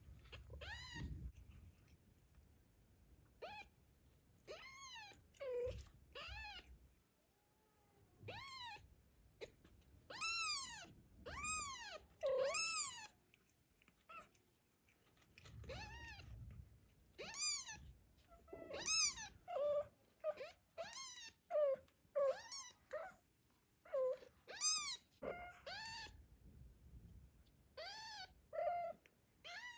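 Newborn kitten mewing over and over in short, high-pitched cries that rise and fall, coming in quick runs, with a few shorter, lower mews among them.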